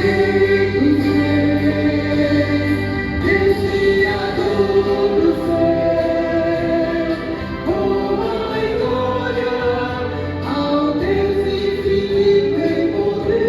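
A vocal ensemble sings gospel in close harmony, holding long chords that change every second or two.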